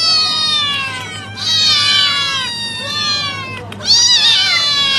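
Domestic cat meowing repeatedly: about four drawn-out meows in a row, each falling in pitch.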